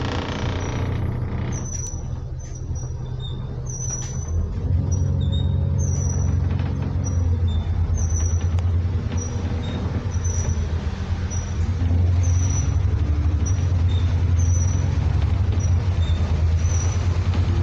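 Double-decker bus's diesel engine running under load, heard inside the bus, its pitch rising and falling several times as it pulls along, over tyre hiss on a wet road. A faint high chirp repeats about once a second.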